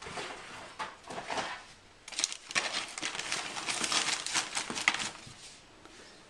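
Plastic DVD cases clicking and clattering against one another as they are pushed upright into a plastic moving box, with some rustling of packing paper. The clicks come thick and fast from about two seconds in and thin out near the end.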